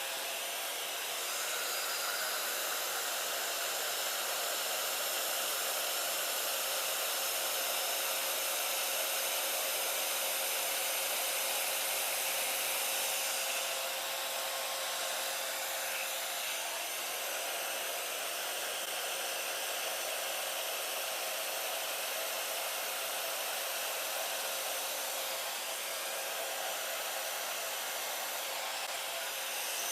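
Hand-held blow dryer blowing continuously, a steady rush of air with a faint steady whine, used to push fluid acrylic paint across a canvas in a Dutch pour. It gets a little louder and quieter a few times as it is moved.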